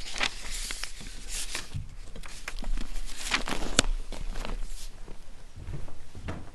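Papers and a book being gathered up on a lectern: rustling with light knocks and one sharp click a little under four seconds in. Footsteps walking away near the end.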